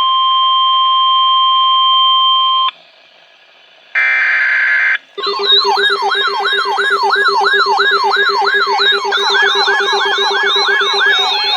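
Emergency alert broadcast tones. A steady weather-radio warning tone stops about three seconds in. About four seconds in comes a second-long burst of data-signal noise. Then a loud siren-like alert signal of falling pitch sweeps repeats about twice a second over a steady low hum, with a second layer of sweeps joining about nine seconds in.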